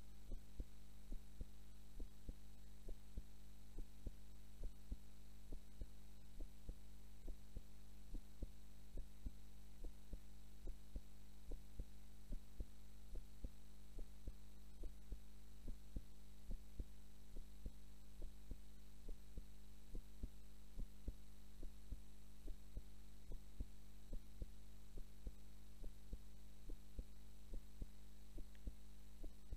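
A woman's heartbeat during a nap, a steady, even rhythm of soft low thumps over a constant low hum.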